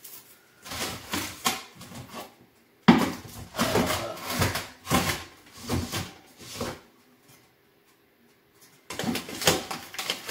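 Rummaging in a kitchen cupboard: cans and other items knock and slide against each other in three spells of clatter, with a quiet pause between the second and third.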